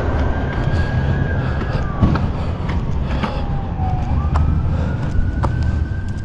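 An emergency vehicle siren wailing: one tone held high, sliding slowly down over about two seconds, then climbing back up, over a steady low rumble.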